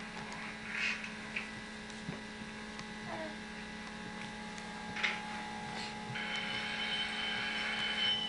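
Steady electrical hum, with a few faint brief sounds over it and a higher steady tone joining from about six seconds in.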